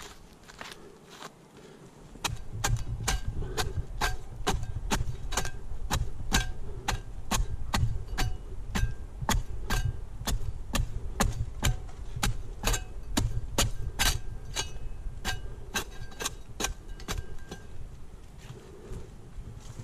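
A fast, irregular series of sharp clicks and knocks, about two to three a second, starting about two seconds in, over a steady low rumble.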